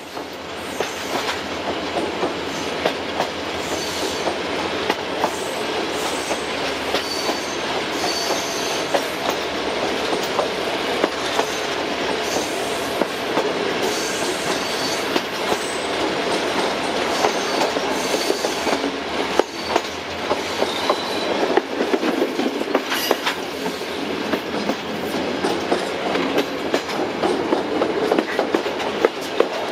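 Train running over the track: steady rolling noise with wheels clicking over rail joints and points, and several brief high-pitched wheel squeals.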